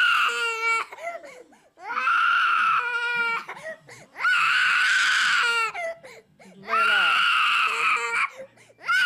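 Toddler crying hard in long, very high-pitched screaming wails, each held for about a second and a half and repeating about every two and a half seconds, with short broken sobs between them.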